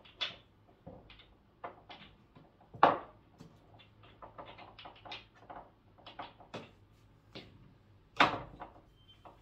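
Billiard balls handled and set down on a mini pool table: a string of light clicks and knocks, with two louder knocks about three seconds in and again near the end.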